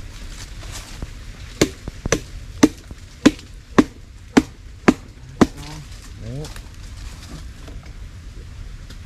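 A knife chopping into a nipa palm fruit head: eight sharp blows, about two a second, then it stops.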